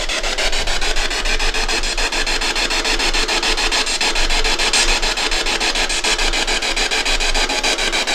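Ghost box (spirit box) sweeping through radio stations: loud, steady hissing static broken by rapid, regular clicks several times a second as the scan jumps from frequency to frequency.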